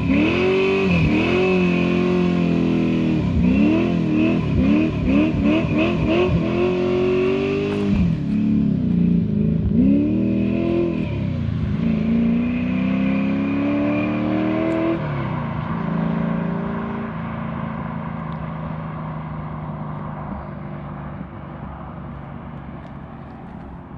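Ford Falcon's 408 V8 engine revved in quick repeated blips, rising and falling in pitch, for about the first fifteen seconds. It then runs more steadily and slowly fades.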